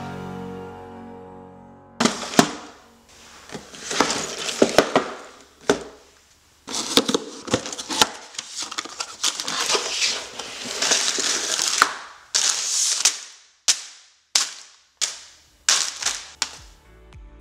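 A cardboard Lego set box being opened by hand, with rustling and tearing, followed by the crinkle of plastic bags of bricks and a run of sharp clicks as they are handled and set down. Background music fades out over the first two seconds.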